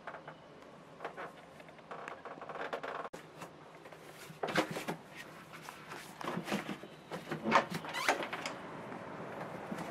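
Handling knocks in a small wood-panelled cabin: slippers slapping on the floor as feet step into them, then a lever door handle turned and the latch clicking. The clicks and knocks come in a loose run through the middle and later part, the sharpest one just before the door opens.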